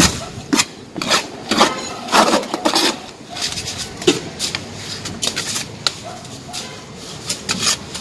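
Hand tool scraping and rubbing over wet sand-and-cement render, shaping a cornice moulding in short, irregular strokes.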